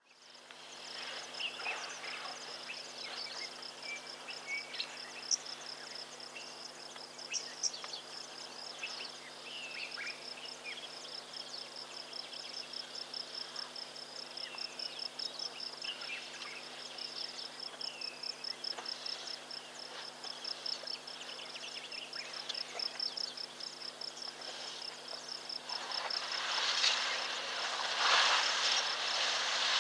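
Outdoor bush ambience: insects keep up a steady, rapidly pulsing high-pitched trill, with scattered short bird chirps and calls over it. Near the end a louder rushing noise swells over the trill, and a faint steady low hum sits underneath throughout.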